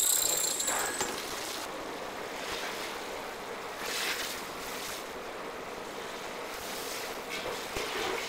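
Steady rushing noise of commercial bakery oven and ventilation fans, with a few brief metallic clatters as a baking tray of egg tarts is turned and slid back into the deck oven.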